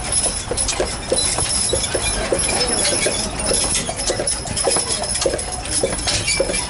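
Clip-clop of two Belgian draft horses' hooves on the paved street as they walk pulling a trolley, an even run of about three hoof strikes a second.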